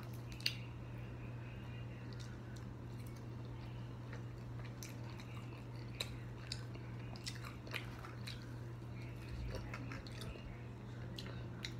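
Chewing and biting into sauced chicken wings, with scattered small wet clicks and smacks from mouth and fingers pulling the meat apart, over a steady low hum.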